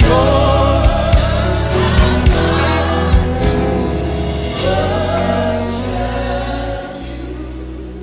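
Gospel choir and congregation singing a slow worship chorus over instrumental accompaniment, the music gradually getting quieter.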